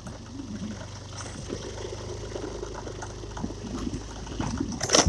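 Motorcycle engine running steadily at low speed, with wind noise on the microphone and a sharp knock near the end.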